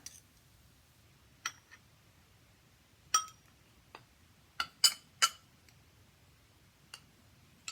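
A spoon clinking against a glass dish while ingredients are measured in: a handful of short, ringing taps, three in quick succession about five seconds in.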